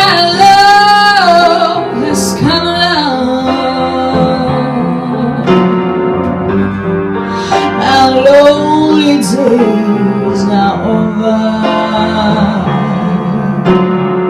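A woman singing a slow melody with vibrato over keyboard accompaniment.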